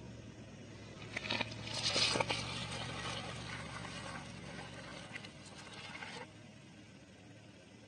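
Car tyre rolling over and crushing pineapple-shaped objects on concrete: a run of crackling and crunching with sharp snaps, loudest about two seconds in, that stops suddenly about six seconds in.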